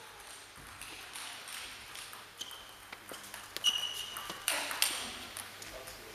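Table tennis rally: the celluloid ball clicking off bats and table in a series of sharp ticks, some with a short ringing ping, the loudest a little before four seconds in, echoing in a large hall.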